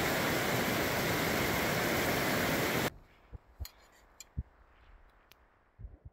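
Steady rushing of a snowmelt-swollen, fast-flowing mountain stream, mixed with wind rumble on the microphone. It cuts off abruptly about three seconds in, leaving a quiet stretch with a few scattered light taps and knocks.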